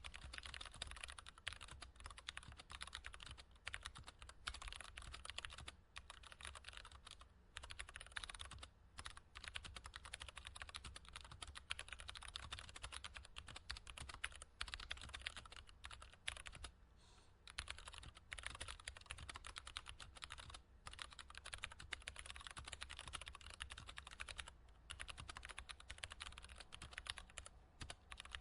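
Computer keyboard typing: a quick, continuous stream of key clicks, broken by short pauses a few times, over a low steady hum.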